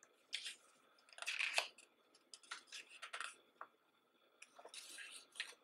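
Paper pages of a thick hardcover photo book being turned by hand, a short rustle with each turn, four or so in all, the loudest about a second and a half in.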